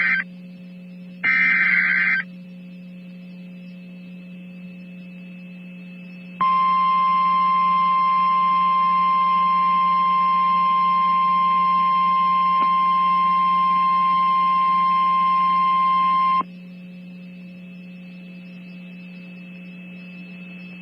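Emergency alert data bursts and attention tone: a warbling digital SAME header squawk lasting about a second, ending about two seconds in. About six seconds in, the single steady NOAA Weather Radio warning alarm tone starts; it holds for about ten seconds and cuts off sharply. A constant low hum runs underneath.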